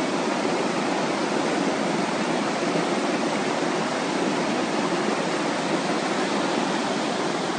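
A mountain creek in flash flood, a wide torrent of muddy water rushing with a steady, unbroken noise.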